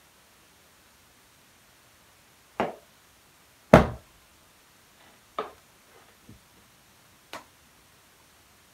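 Five separate dull knocks or thumps spread over about five seconds. The second is the loudest, and each dies away quickly.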